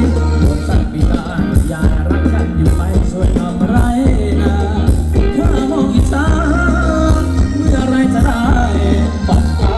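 Thai luk thung dance song played loud by a live band through a PA, a singer's voice over heavy bass.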